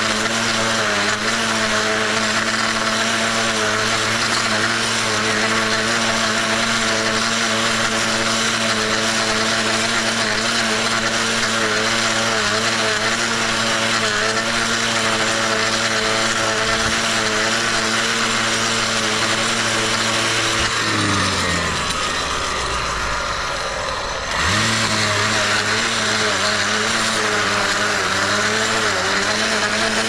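Gas-powered stick blade edger running at high throttle as it edges along a sidewalk. About 21 seconds in, the engine drops toward idle and the blade sound eases. About three and a half seconds later it revs straight back up to full speed.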